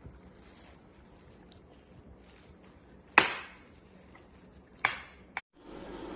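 Sharp knocks: a loud one about three seconds in, a second about a second and a half later, and a small one just after it. Then a steady hiss sets in near the end.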